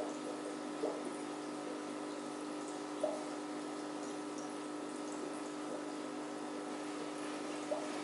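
Aquarium running: a steady hum from its pump, with water trickling and bubbling. A few short bubble plops come about a second in, at about three seconds and near the end.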